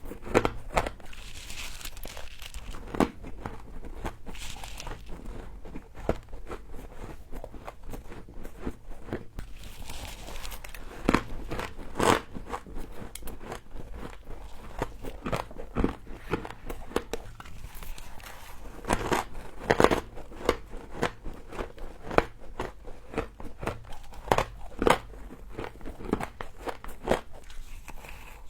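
Frost being bitten and chewed close to the microphone: frequent sharp, crisp crunches with a few brief softer crumbling rustles in between.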